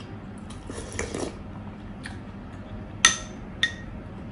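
A metal spoon clinks against a dish twice about three seconds in: a bright ringing tap, then a lighter one. Before that come soft eating noises.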